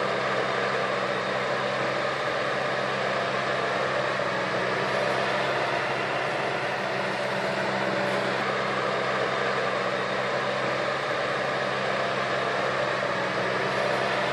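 A heavy machine's engine running steadily, a constant drone with a low hum and no change in speed.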